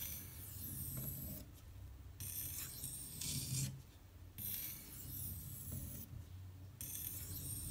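Steel knife blade (a Spyderco Endela in K390) being drawn across a wet silicon carbide sharpening stone: four long hissing strokes with short pauses between them.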